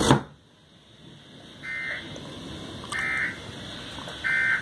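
Emergency Alert System end-of-message data bursts: three short, harsh digital screeches about 1.3 s apart, the SAME code that closes an EAS warning broadcast.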